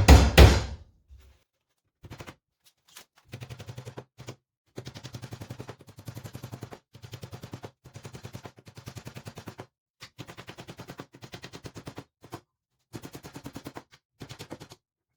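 Nails being driven into the timber sides of a wooden beehive box, as rapid runs of sharp knocks. The knocks come at roughly ten a second, in bursts of about a second with short pauses between them.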